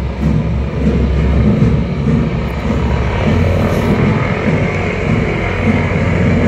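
Loud, steady engine drone of a propeller aircraft running, its low pitch shifting a little a few seconds in.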